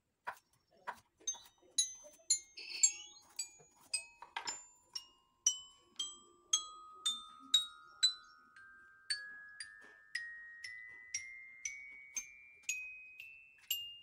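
Bright glockenspiel-like plinks, each a short ringing note that starts with a sharp tap; irregular at first, then about two a second, with the pitch climbing steadily note by note.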